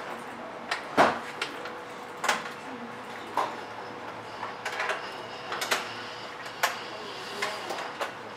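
Handling noise from a backpack-style roaming photo booth being slung on: irregular clicks and knocks of its strap clips and hard casing, the sharpest knock about a second in.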